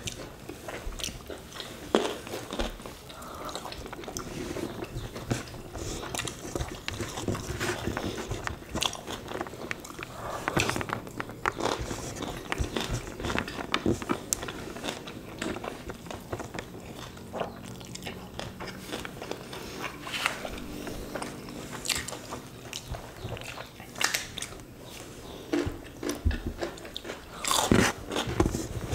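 Close-up eating sounds of two people eating rice and beef sambal by hand: chewing, with a dense run of small wet clicks and smacks from mouths and fingers.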